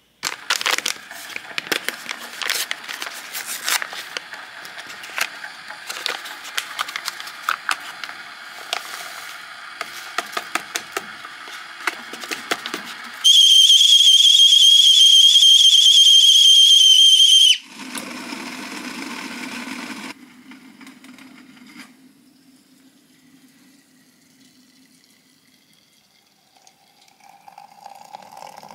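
Wood fire crackling in a wood-burning stove, with many sharp pops. About 13 seconds in, a stainless steel stovetop kettle whistles loud and high at the boil for about four seconds and cuts off suddenly. Near the end, hot water is poured into a mug.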